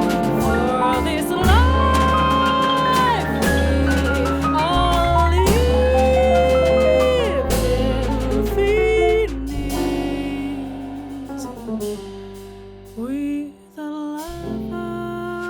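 Jazz ballad played by a quartet: a singer holding long, sliding notes over piano, double bass and drums with cymbal strokes. The band thins out and dips briefly near the end.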